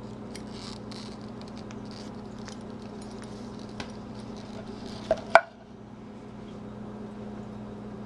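Leather belt being handled with faint rustling and scraping. About five seconds in come two sharp knocks, the metal buckle striking the wooden slab as the belt is set down.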